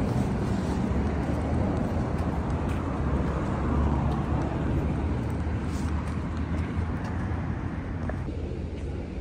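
Outdoor street ambience: a steady rumble of road traffic with a low hum.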